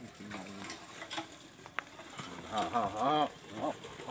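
A person's voice, briefly, a little past halfway, over faint scattered clicks and knocks.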